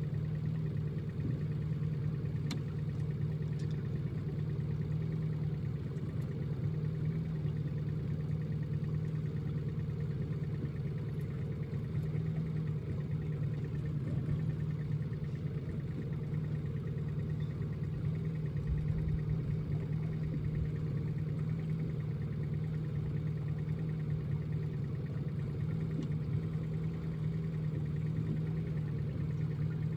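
Boat motor running steadily at one even pitch, with a few faint clicks.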